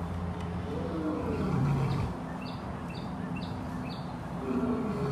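Tiger giving two low, drawn-out calls, one about a second in and another near the end. Four short bird chirps come in between.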